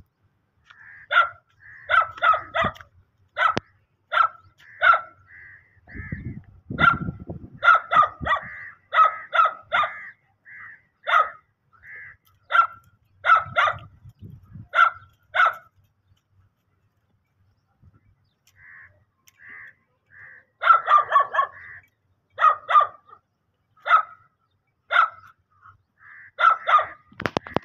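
Hunting dog barking in quick runs of short, sharp barks at a brush pile, stopping for a couple of seconds around the middle before starting again.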